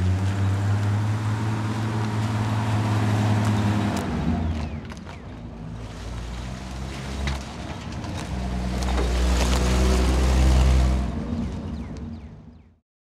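An old four-wheel-drive SUV's engine running as it pulls away and drives down a dirt driveway. It eases off after a few seconds, swells to its loudest about ten seconds in, then fades and cuts off just before the end.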